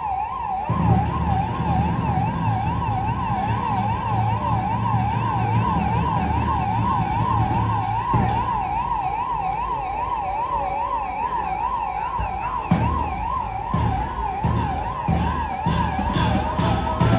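Police escort siren in a fast warble, its pitch sweeping up and down about three to four times a second without a break, over a low rumble.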